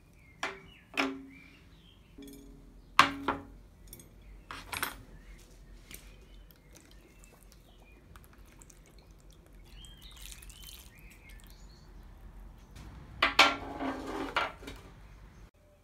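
Small iron parts and a wooden handle set down on a work table: sharp clinks with a short low ring, a few in the first five seconds. Later, vinegar poured into a plastic tray, then a clatter of several quick knocks near the end.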